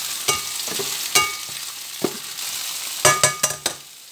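Sliced onion, garlic and chili sizzling in hot oil in a nonstick frying pan while a spatula stirs them, with a sharp knock of the spatula against the pan about once a second. About three seconds in comes a quick run of louder, ringing knocks as the spatula is tapped on the pan, and then the sizzle quietens.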